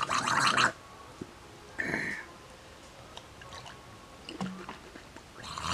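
A man's loud, breathy exclamations while eating: one at the start, a shorter one about two seconds in and another near the end, with quieter mouth and chewing sounds between.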